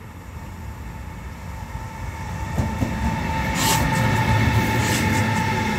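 Electric locomotive approaching and passing close by: a steady whine over a rumble of wheels on rail that grows louder, loudest about four seconds in. Two sharp clacks come as the wheels cross rail joints.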